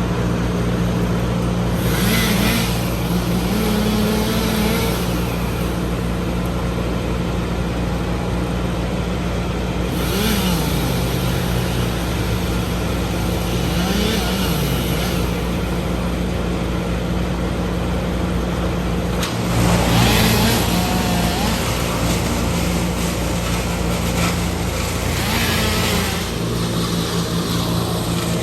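Heavy machinery engine running steadily, with a few brief hissing bursts and short rises and falls in pitch.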